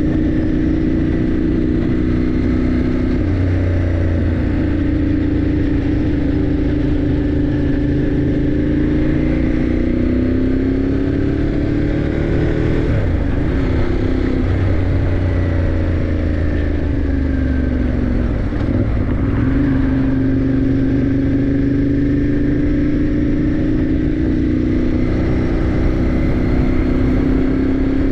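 Motorcycle engine running under way, its note climbing slowly as the bike pulls, dipping with a short break about halfway and again after about two-thirds, then climbing again, over a steady rush of wind and road noise.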